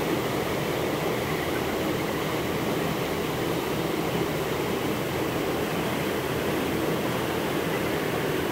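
Steady running noise of a river cruise boat under way: a constant engine drone mixed with the rush of its propeller wake churning behind the stern.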